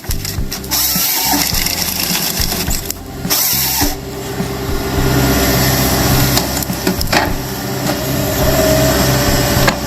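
Heavy machinery running with a steady engine note and mechanical noise, changing abruptly several times.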